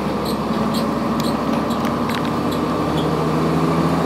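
Inside a 2002 Blue Bird CS transit bus on the move: its Cummins ISC diesel engine runs with a steady hum, with scattered light rattles and clicks from the body.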